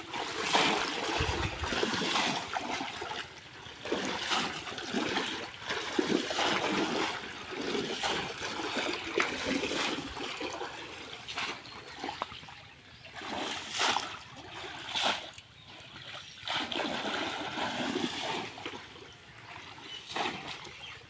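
Water splashing and sloshing in repeated, irregular bursts as a man wades through a shallow pond and plunges a bamboo polo basket trap into the water.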